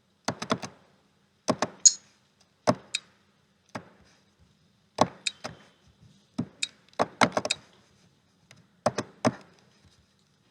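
Sharp clicks and light knocks in quick little groups of two to four, about one group a second, with pauses between.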